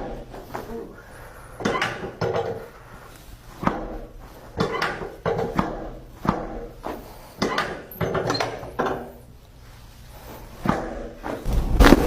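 A series of sharp cracks and thumps from chiropractic adjustments, about a dozen, spaced unevenly every half second to a second and a half.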